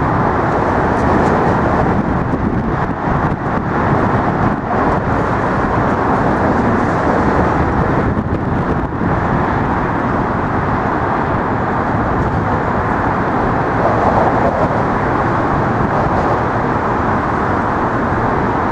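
Steady noise of road traffic driving across a bridge, an even rush of car and tyre sound with no single vehicle standing out.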